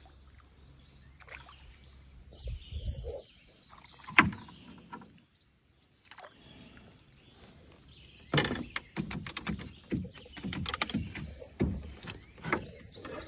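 Irregular knocks and rattles in a small fishing boat as a bream is reeled in and brought aboard. There is one sharp knock about four seconds in, and a busy run of clattering in the last five seconds.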